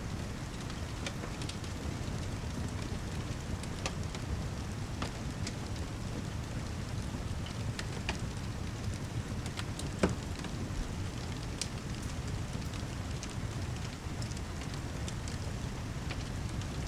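Wood fire in a fireplace crackling, with scattered sharp pops and one louder pop about ten seconds in, over a steady low rumble and the hiss of heavy rain.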